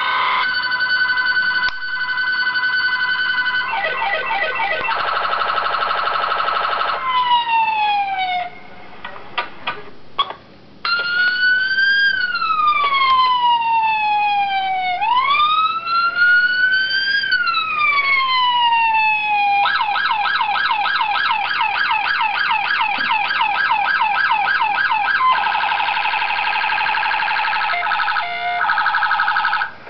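Electronic police siren cycling through its tones: a steady tone, then a fast warble that winds down, a brief break, two slow rising and falling wails, and a rapid yelp followed by a faster trill that stops near the end.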